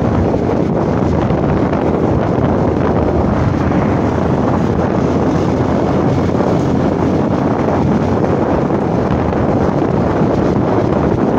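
Steady wind rushing over the microphone of a motorcycle in motion, mixed with the bike's engine running.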